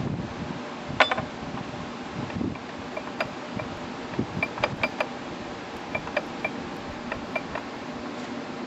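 Light metal clicks and clinks from the gears and small loose parts of an opened Sears ST16 lawn tractor transaxle being handled: one sharp knock about a second in, then a scatter of short clicks.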